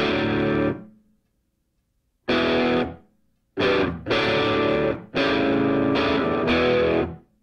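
Background rock music: distorted electric guitar chords struck and held, then cut off sharply in a stop-start pattern, with a silent break of over a second near the start.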